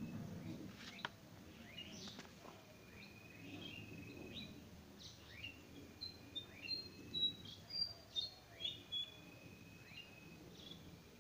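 Birds calling: repeated short rising chirps and thin level whistles, with a run of sharp high notes in the middle, louder than the rest.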